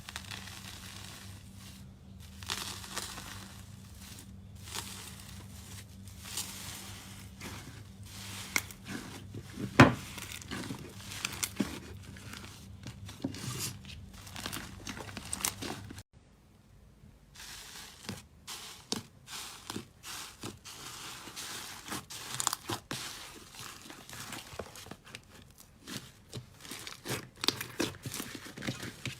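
Slime being handled close to the microphone, with a dense run of crackling, crinkly clicks and short squelches. The sound breaks off sharply about halfway through and resumes after a pause.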